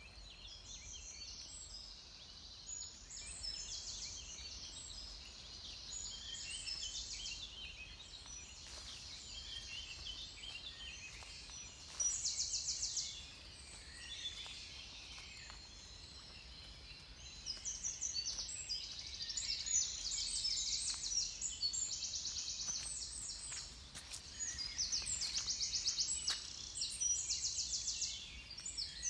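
Dawn chorus of several songbirds singing at once, overlapping phrases and calls, with a few loud rapid trills about twelve seconds in and again repeatedly in the second half. A faint low rumble lies underneath.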